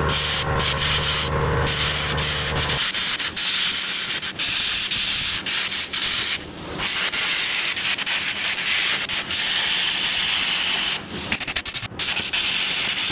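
Angle grinder grinding steel on a truck's rear axle housing: a steady, harsh grind with short dips as the disc comes off the metal, notably about six and a half seconds in and again near eleven to twelve seconds. A low steady hum runs underneath for the first three seconds or so, then stops.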